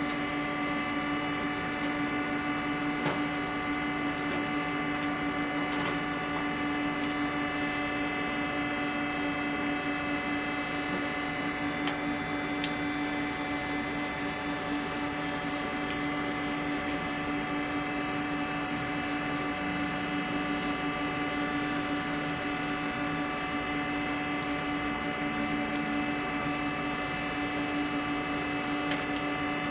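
Steady machine hum with a strong low drone and several higher tones held level throughout, with a few faint clicks.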